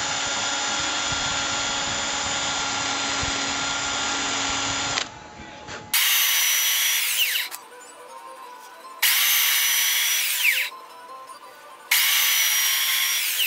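Cordless drill spinning a small felt buffing wheel, running steadily for about five seconds and then stopping. After that, a handheld electric power tool is switched on three times in short runs of about a second and a half, each spinning up with a high whine and winding down when released.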